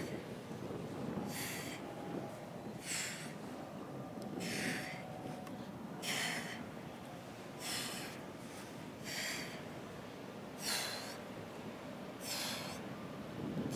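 A woman's sharp breath exhaled through the mouth with each abdominal crunch, a short hiss repeating steadily about every one and a half seconds.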